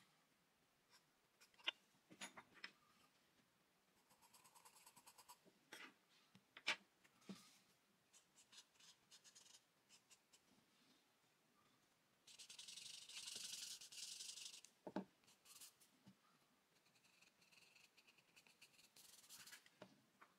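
Faint rubbing and scratching of a stick tool worked over charcoal on drawing paper, in short strokes with soft taps between them. A longer run of quick back-and-forth rubbing starts about twelve seconds in.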